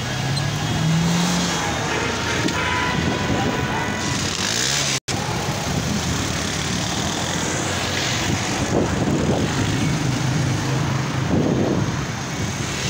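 Road traffic of a passing convoy: cars, SUVs and motorcycles driving by on a highway, a steady mix of engine and tyre noise. The sound drops out completely for an instant about five seconds in.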